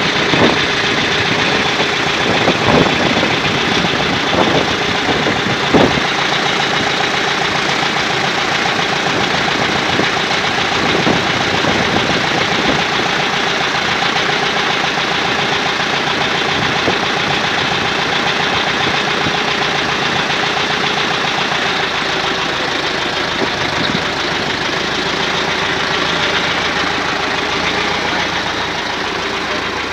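A tractor's diesel engine running steadily close by, with a few short knocks in the first six seconds.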